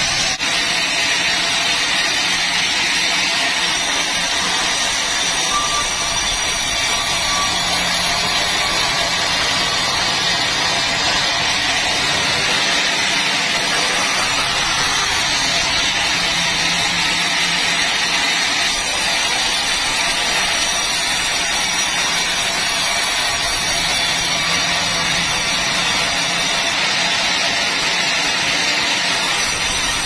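Sawmill saws cutting timber: a band saw running through a log, then long boards being sawn, a steady loud whir and hiss with no break.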